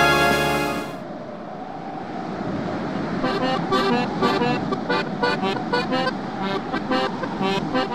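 Brass music that cuts off about a second in, followed by accordion music fading in and playing a tune of short, separate notes.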